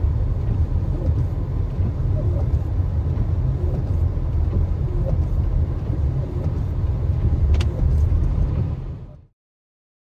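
Steady low rumble of a moving car, engine and road noise, with one faint click near the end. It dies away abruptly about nine seconds in.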